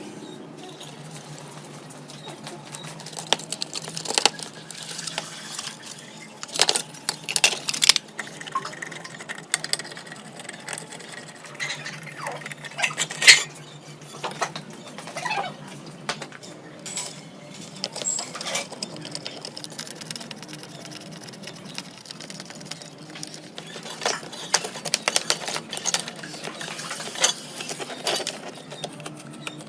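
Small hard parts and hand tools being handled during a device rebuild: irregular light clicks and taps, some sharper than others, over a low steady hum.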